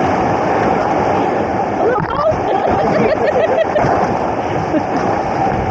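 Whitewater rapids rushing and splashing against an inflatable raft. Voices are partly heard over the water about two seconds in.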